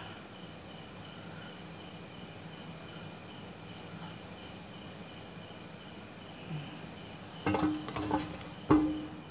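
Steady high-pitched insect trilling, like crickets, with a quick pulsing underneath. Near the end a few sharp knocks on the wooden tabletop as the folded banknote hearts are set down.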